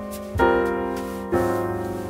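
Slow background piano music: sustained chords, a new one struck twice, each fading away before the next.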